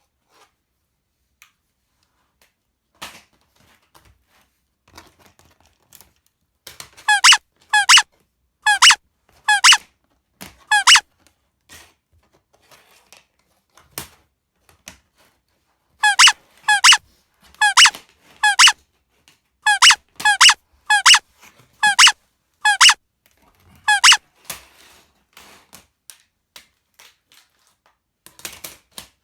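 A series of short, high squeaks, each dipping slightly in pitch: about five in a row, a pause, then about ten more at roughly two a second. Light clicks of plastic toy track pieces come in between.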